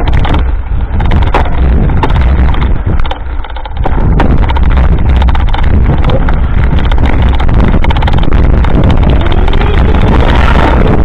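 Wind buffeting the microphone of a camera riding on a mountain bike over a rough, sandy dirt trail, with a steady stream of knocks and rattles from the bumps. It gets louder and busier about four seconds in.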